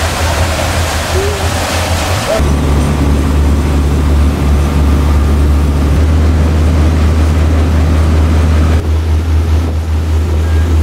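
Chris Craft 360 Commander cabin cruiser underway at speed: a steady low engine drone with the rush of water from the wake and wind on the microphone. For the first couple of seconds a broad rush of wind and water is loudest; then the low engine drone takes over.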